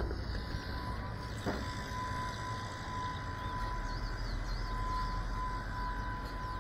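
FPV quadcopter's brushless motors spinning at idle while the drone sits on the ground before takeoff: a steady high whine over a low rumble. A soft knock about a second and a half in.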